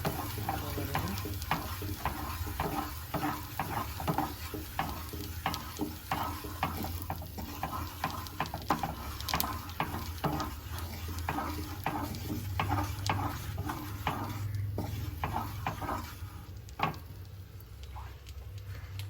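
Spoon stirring flour in sizzling ghee in a pan, roasting it for a white sauce, with repeated quick scrapes and taps against the pan over a light sizzle.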